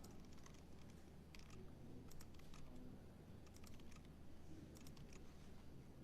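Faint typing: scattered clicks of computer keys, over a low steady hum.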